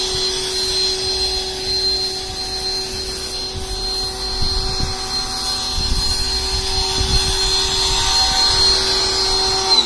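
Ryobi 1800 PSI electric pressure washer running steadily with a high whine, its water spraying from the soap tip. The motor winds down with a falling pitch at the very end.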